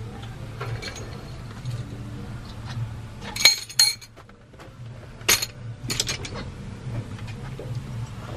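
Metal hand tools, sockets and wrenches, clinking as they are pulled from a rolling toolbox and set down, over a steady low hum. There are a few sharp clinks, the loudest pair about three and a half seconds in and more around five and six seconds.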